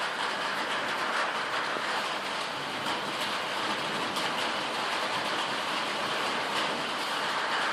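Steady heavy rain, an even hiss with a few scattered sharper spatters.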